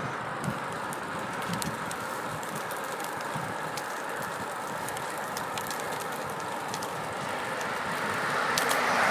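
Steady rushing wind and road noise from riding a road bicycle, with scattered faint clicks and rattles. The rush swells louder near the end.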